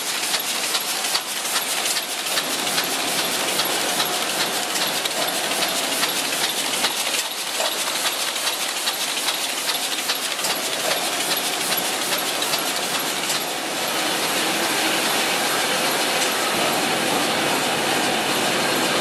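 Six-colour Komori LS640 sheetfed offset press running: a steady, dense mechanical clatter of rapid clicking over a constant wash of noise.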